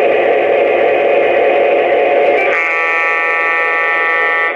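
Diesel engine sound of an Atlas O F7 model locomotive's onboard sound system, a steady rumble from its small speaker. About two and a half seconds in, a horn blast comes in and holds steadily for about two seconds over the engine sound.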